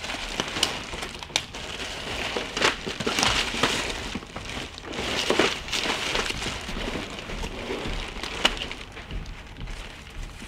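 Cardboard and packaging rustling and crinkling as items are dug out of a shipping box by hand, with a few sharper knocks and clicks, one of the sharpest about eight and a half seconds in.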